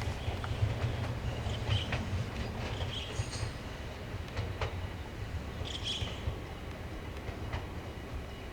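Kumamoto Electric Railway train running past: a steady low rumble with irregular clicks of wheels over rail joints, and two brief high wheel squeals.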